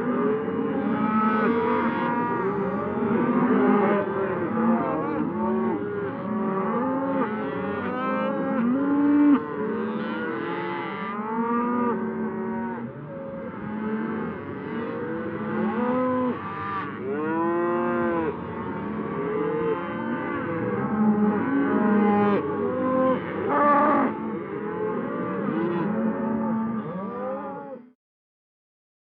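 Herd of cattle mooing, many cows calling at once with overlapping long moos that rise and fall in pitch. The sound cuts off suddenly near the end.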